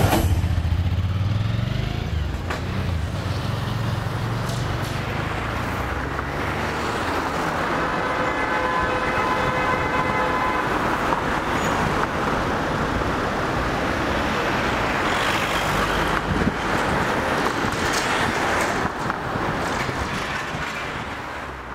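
City street traffic noise, a steady wash of passing vehicles. A vehicle horn sounds for about three seconds some eight seconds in, and the traffic fades out near the end.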